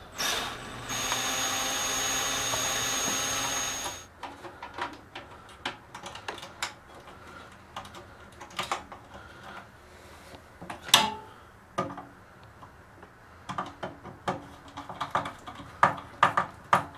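Cordless drill running steadily for about three seconds as it drives a screw into an electrical outlet box, then cutting off abruptly. After that come scattered sharp clicks and knocks from hands working breakers in a breaker panel, one loud knock about eleven seconds in.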